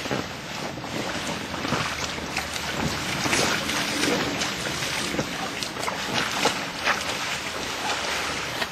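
Pool water splashing as swimmers kick and paddle, with irregular splashes over a steady wash of noise.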